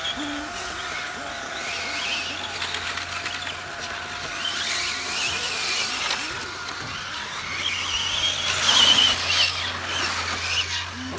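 1/8-scale GT8 electric RC cars with 6S brushless motors racing on an asphalt track: a high-pitched motor whine that rises and falls as they accelerate and brake. It is loudest about three-quarters of the way through, with a rush of tyre noise as a car passes close.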